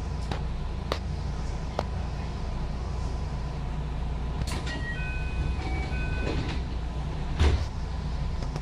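Running noise heard inside a JR West 221 series electric train: a steady low rumble with a faint steady tone above it and a few sharp clicks in the first two seconds. About halfway through comes a short run of beeps at several different pitches, and a heavier thump follows near the end.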